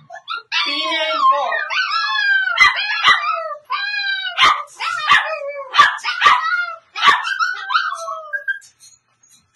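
A dog howling and whining in long, high, wavering cries, broken by about seven sharp yips in the middle stretch.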